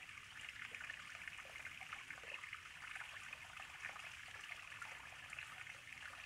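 River water flowing and trickling steadily, a faint, even babble.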